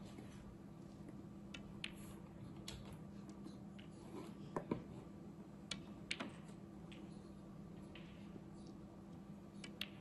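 Snooker balls clicking: a few sharp cue-tip and ball-on-ball clicks, two quick pairs near the middle, over a faint steady hum.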